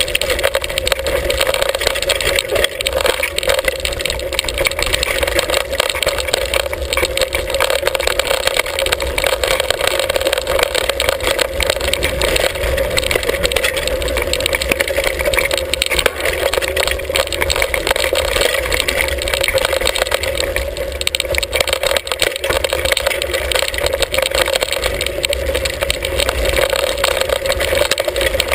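Continuous rattling and jolting of a hardtail mountain bike and its handlebar-mounted action camera riding rough dirt singletrack, with tyres on dirt and stones and wind rumbling on the microphone.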